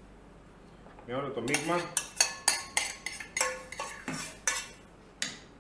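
Metal spoon scraping and tapping against a small saucepan to get the last of the honey-and-vinegar mixture out. A short squeaky scrape about a second in, then about ten sharp metallic clinks, each ringing briefly.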